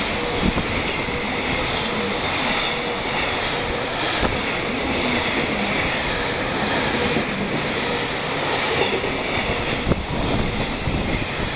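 Container freight train running through a station at speed: steady loud rumble and clatter of the container wagons passing close by, with a few sharp knocks from the wheels.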